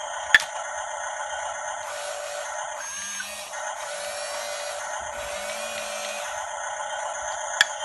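Small electric drive motors and gearbox of an RC toy bulldozer whining steadily, with a sharp click about a third of a second in and another near the end.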